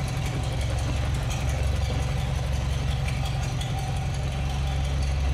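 An engine idling steadily, a continuous low drone with a faint steady higher tone above it.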